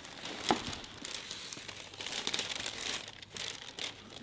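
Paper packaging crinkling and rustling as it is handled and unfolded, in irregular crackles with a sharper one about half a second in.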